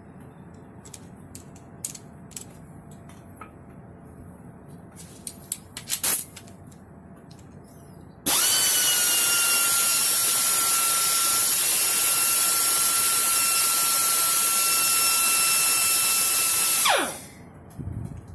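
Golconda GS-1503 extended pneumatic die grinder running free. After a few small clicks, it starts abruptly about eight seconds in with a loud rush of exhaust air and a steady high whine, and runs at constant speed for about eight and a half seconds. When the air is released, the whine glides down in pitch as it spins down.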